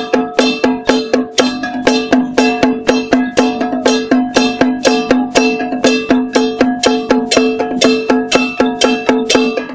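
Traditional Taiwanese temple percussion of ringing gongs and cymbals, struck in a fast, even rhythm of about four strikes a second, accompanying a Song Jiang Zhen troupe.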